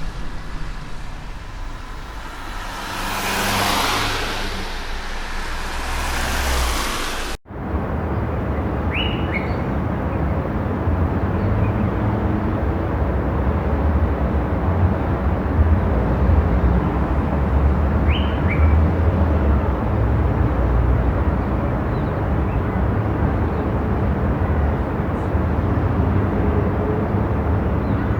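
Steady low rumble of car and road noise, with a swell of hiss about three to six seconds in. About seven seconds in the sound cuts out for an instant, as at an edit join, then the even rumble resumes. Faint bird chirps come twice.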